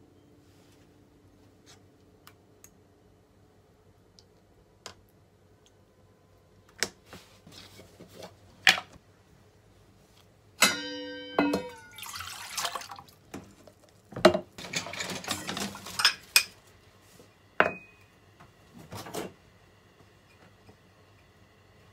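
Kitchen handling sounds: scattered clicks and knocks of dishes and containers being set down and moved on a countertop, with one ringing clink about halfway through and a few short stretches of rustling or scraping.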